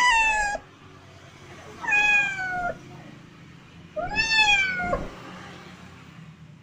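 A kitten meowing three times, about two seconds apart. Each meow is a high call that falls in pitch.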